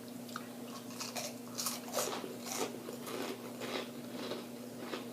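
A person chewing crunchy fried food, with irregular crisp crunches several times a second.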